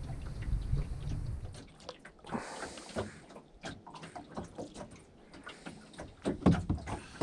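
Small water splashes and clicks around a small fishing boat, with a few louder thumps near the end as a hooked pejerrey is lifted out of the water. A low rumble comes first and stops after about a second and a half.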